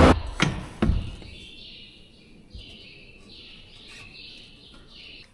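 Two knocks in the first second, then small birds chirping over and over, faint.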